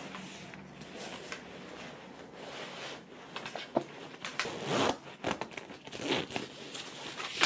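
Zipper on a fabric bag being pulled along, with rustling of the bag's fabric and a few sharp clicks as the bag is handled and packed.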